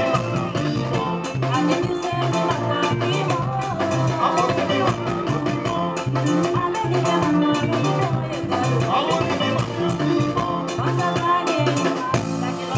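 A live band plays upbeat dance music on electric guitars, bass guitar, drum kit and keyboards over a steady, repeating bass line.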